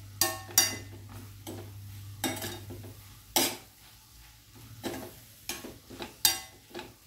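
Metal spatula stirring and scraping chopped tomato, onion and capsicum masala around a stainless steel frying pan, in irregular strokes about once or twice a second.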